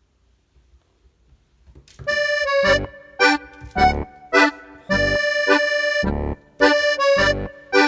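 Background accordion music with short chords in a bouncy rhythm, starting about two seconds in after near silence.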